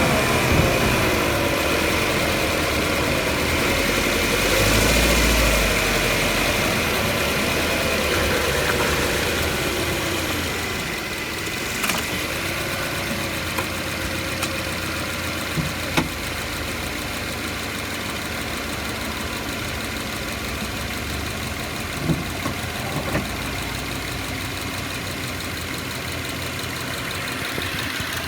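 Drivetrain running at the right front axle of a 2013 Subaru Outback, where it enters the differential. The owner cannot yet explain the grinding noise it makes. Whining tones fall in pitch over the first few seconds over a steady high tone, and a few sharp knocks come later.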